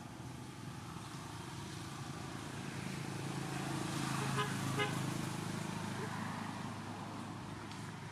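A motor vehicle passing by: its low engine and road noise swell and then fade, with two short horn toots about halfway through.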